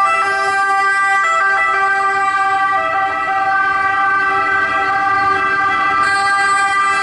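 Several ambulances in a slow-moving convoy sounding their warning horns and sirens together: a loud, steady chord of held tones.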